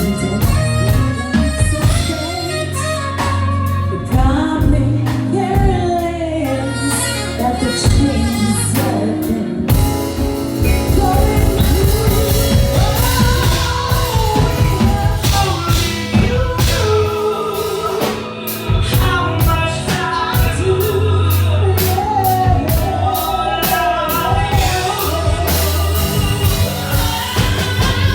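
Live R&B band playing, with a drum kit keeping a steady beat under a bass line, while a singer sings a melody over it.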